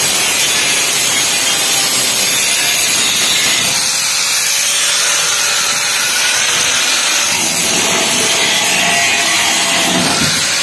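Angle grinder grinding steel: a loud, steady, high hissing scrape that runs on without a break.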